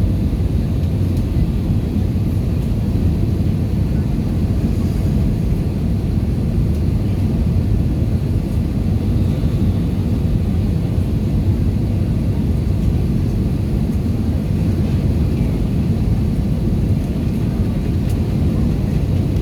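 Cabin noise inside an Airbus A320-214 in flight: a steady low rumble of its CFM56 engines and the airflow past the fuselage.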